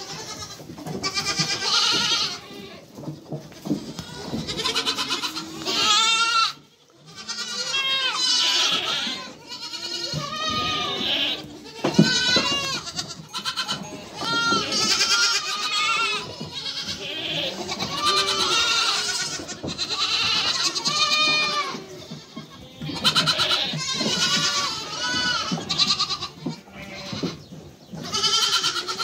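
Many goat kids bleating, their calls overlapping one after another almost without pause, briefly falling quiet about seven seconds in.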